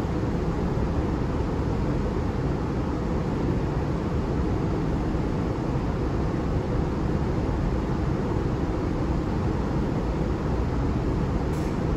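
Steady low background rumble of constant room noise, even throughout with no distinct events.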